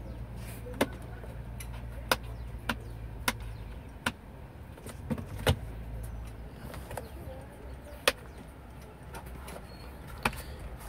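Scattered sharp plastic clicks and knocks, about nine in all, from a car's centre console armrest lid and storage bin being handled, over a steady low hum.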